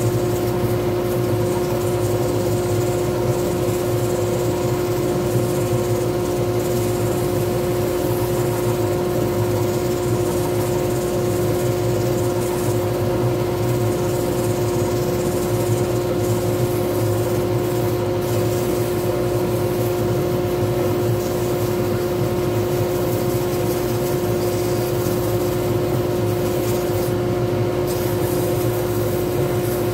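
Wood lathe running steadily at speed, a constant hum with a fixed whine over even machine noise, while sandpaper is held against the spinning wooden pen blank.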